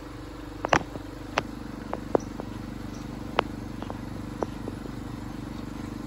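Small garden tractor engine idling steadily with a fast even low pulse, with sharp clicks scattered irregularly over it, the loudest a quick double click under a second in.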